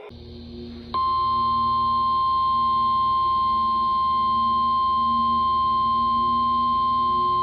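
NOAA Weather Radio warning alarm tone, a single steady high tone of about 1050 Hz that switches on abruptly about a second in and holds, over faint radio hiss. It signals that a new warning broadcast is about to follow.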